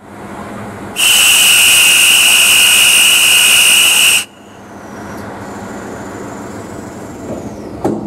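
A departure whistle blown once, loud and steady for about three seconds: the signal for the NS DM90 railcar's doors to close. The doors shut with a short thump near the end.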